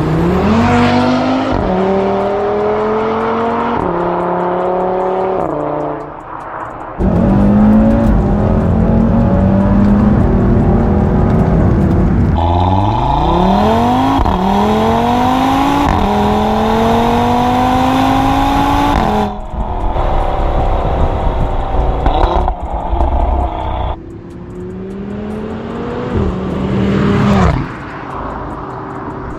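Audi RS3 Sportback's turbocharged 2.5 TFSI inline five-cylinder, tuned to 465 CV, accelerating hard in several pulls. The pitch rises through each gear and steps down sharply at quick upshifts, with the engine easing off between pulls.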